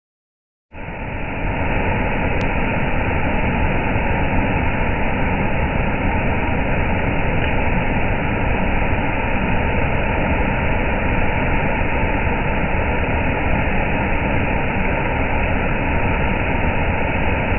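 Large waterfall: a steady, even rush of falling water, starting abruptly just under a second in.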